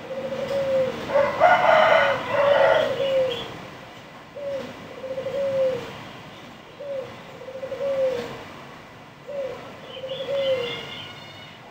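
A dove cooing in a repeated phrase, a short note then a longer falling one, about every two and a half seconds. A louder, higher bird call overlaps it about a second in.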